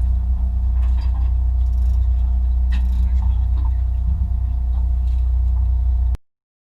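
Boat engine running with a steady low drone and a constant hum, a few light knocks over it, cutting off suddenly about six seconds in.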